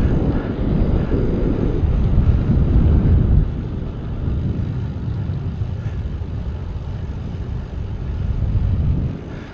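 Wind buffeting the microphone while riding a bike, a heavy low rumble that is strongest for the first three seconds or so and then eases.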